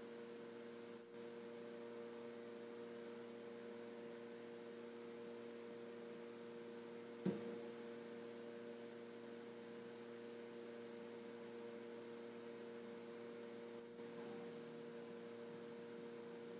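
Steady low electrical hum of a few level tones, with a single sharp knock about seven seconds in.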